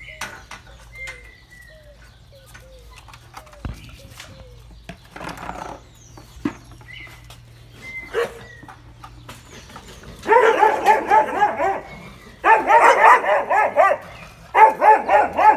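Pointer dogs barking in fast, excited volleys. There are three loud bouts of rapid barks in the last third, after several quieter seconds.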